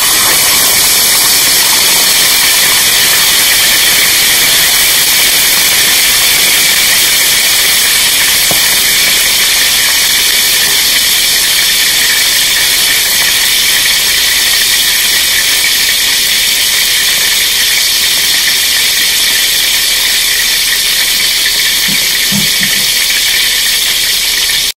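A whole pomfret deep-frying in hot oil in a wok: loud, steady sizzling.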